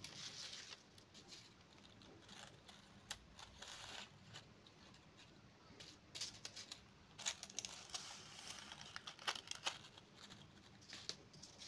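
Faint, irregular rustling and crinkling of paper being handled, with scattered sharp clicks and snips.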